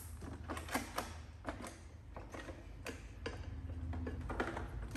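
Panasonic IH rice cooker running on its quick-cook setting: a steady low hum with irregular light clicks and ticks.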